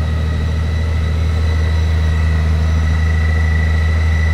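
2021 Honda Gold Wing's flat-six engine idling steadily, with a thin steady high whine over the low engine note.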